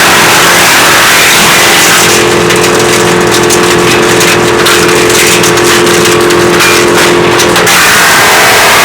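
WC 8 woodchipper, driven through an angle gearbox, running loud and continuously. From about two seconds in until near the end, a steady hum joins, and the hiss above it turns choppy and crackling before settling back.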